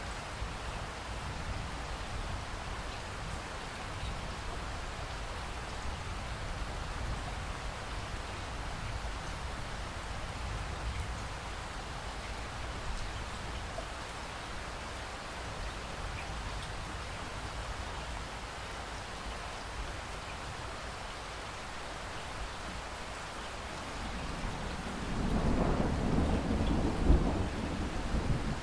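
Steady rain falling. About 25 seconds in, a loud, low rumble of thunder rolls in, swells and peaks near the end.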